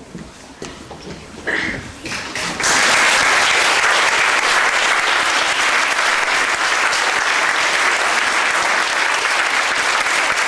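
Audience applauding: the clapping breaks out suddenly about two and a half seconds in, after a few quieter scattered noises, and then holds steady.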